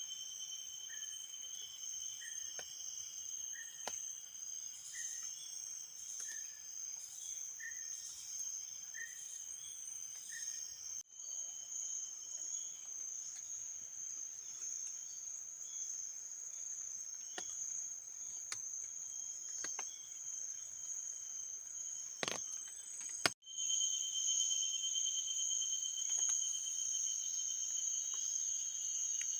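Steady high-pitched trilling of insects, crickets or similar, with a short chirp repeated a little more than once a second through the first ten seconds. There is a single sharp knock about three-quarters of the way through, and two brief dropouts.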